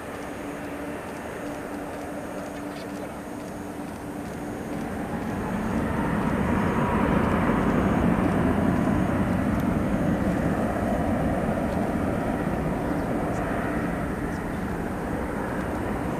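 Jet engines of a Boeing 787-8 landing, its Rolls-Royce Trent 1000 turbofans heard at a distance as a steady rumble. The rumble swells about five seconds in, is at its loudest around touchdown, then slowly fades as the airliner rolls out.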